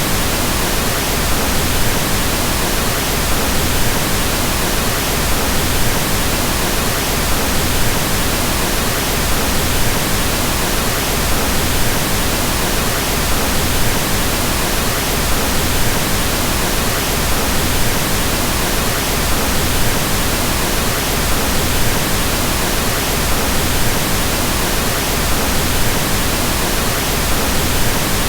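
Steady pink noise: an even hiss across all pitches, fuller in the lows, that does not change.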